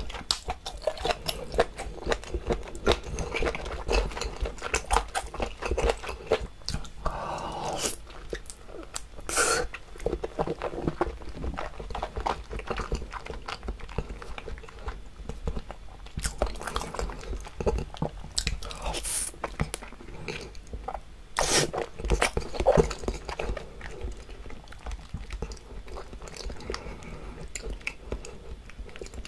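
Close-miked chewing and biting of raw salmon sashimi, a run of small mouth clicks with a few louder bites.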